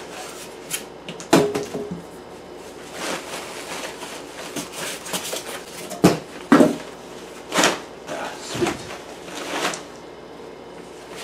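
Protective wrapping sheet rustling in irregular swishes as it is pulled back off a digital piano in its cardboard box, with a few sharp knocks, the loudest about six seconds in.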